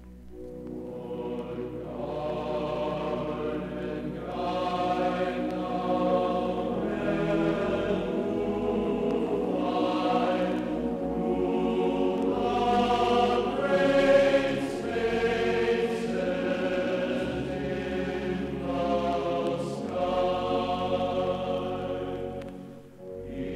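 Soundtrack music of slow, sustained choral voices singing drawn-out chant-like chords, dipping briefly near the end.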